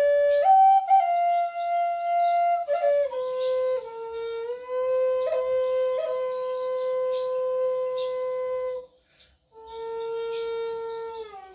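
Flute playing a slow melody of long held notes, with a short break about nine seconds in and a step down in pitch near the end.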